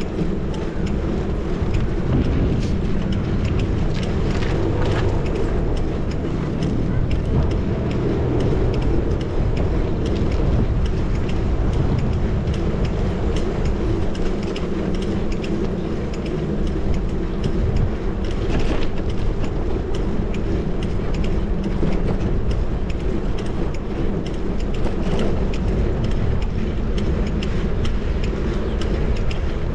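Sound of riding a bicycle through city streets with a GoPro 10: a steady rush of wind and road noise on the microphone, with frequent small clicks and rattles, and passing traffic.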